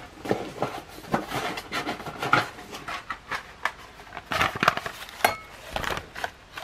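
Blister-packed die-cast toy cars on their cardboard cards being taken out of the case and handled: irregular plastic clicks, taps and rustles as the packs knock and rub together.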